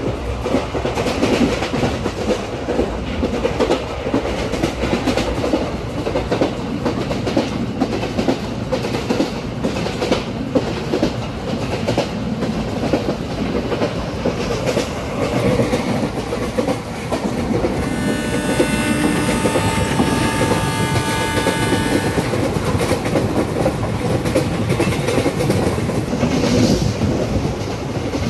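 Indian Railways ICF passenger coach running at speed, heard from the open door: a steady rumble of wheels on track with clickety-clack over the rail joints. About two-thirds of the way through, a train horn sounds for about four seconds.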